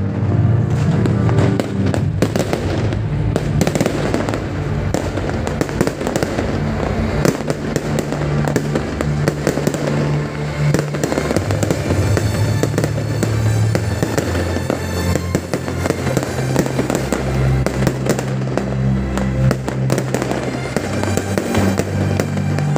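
Fireworks display: rapid bangs and crackling of aerial shells bursting overhead, with music playing under them.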